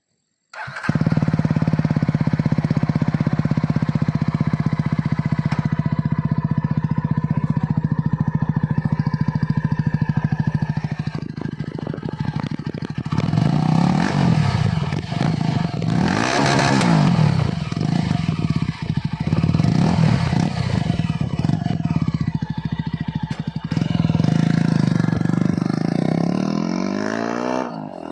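Yezdi Scrambler's single-cylinder engine running with both silencers removed, open dual exhaust. It idles steadily for about ten seconds, then is revved several times, the pitch rising and falling, before settling back near the end.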